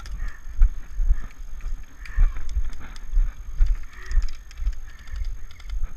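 Irregular low thumps, about two a second, with rustling and light clicks: a player moving across the field with a body-worn action camera, its mounting and gear knocking against it.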